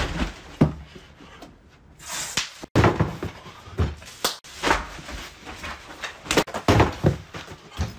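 A scuffle: irregular thumps and slaps, with rustling of bedding.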